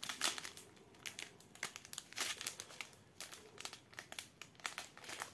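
Small plastic bags of diamond-painting drills crinkling in irregular bursts of rustle as a strip of them is unrolled and handled.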